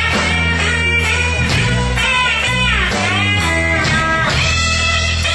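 Live blues band playing: electric guitar and bass guitar, with the lead notes bending up and down in pitch over a steady bass line.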